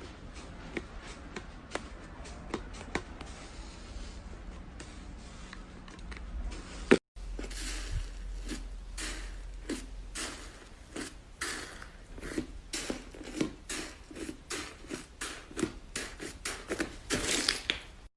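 Slime being squeezed and pressed by hand, giving irregular small sticky clicks and pops. After a cut about seven seconds in, the popping and crackling is louder and denser.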